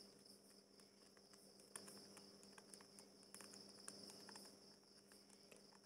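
Faint, scattered small clicks and taps of a fishing reel being handled and opened, its cover screws and metal parts knocking lightly, over a steady high chirr of crickets and a low hum.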